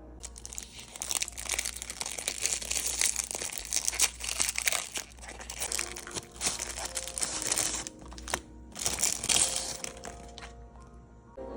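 Plastic packaging crinkling and rustling as it is handled and pulled off a board game, in busy bursts with a brief pause about eight seconds in, stopping shortly before the end.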